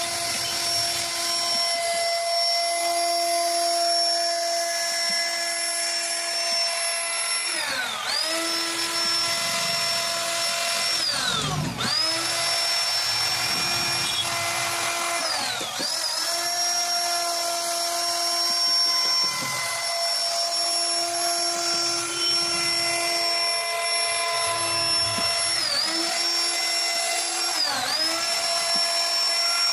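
CNC router spindle running with a steady high-pitched whine while it cuts wood. Its pitch briefly drops and recovers about five times.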